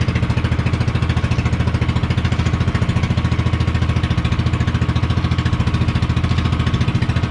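Small single-engine motor on an outrigger fishing boat running steadily under way, with a rapid, even low chugging.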